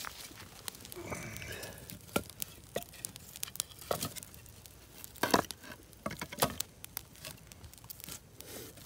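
Small wood campfire crackling with irregular sharp pops, mixed with the knock and rustle of sticks and branches being laid on the fire by hand.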